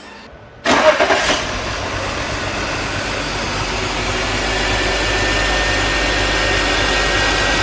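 BMW 325i's inline-six engine idling on a cold start, shaking slightly from random multiple-cylinder misfires, which are traced to injectors delivering uneven amounts of fuel. The engine sound comes in suddenly about two-thirds of a second in.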